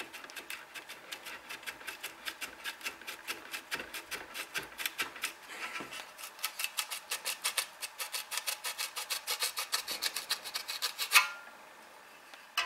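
Wooden handle of an old dovetail saw being wriggled back and forth on its steel saw plate, a fast rhythmic scraping rub several times a second. A single louder knock about eleven seconds in as the handle comes free.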